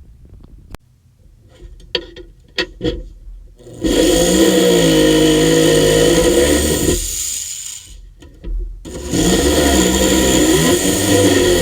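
Handheld power tool run in two long bursts, its motor pitch dipping and recovering as it comes under load, with scattered clicks and knocks before and between.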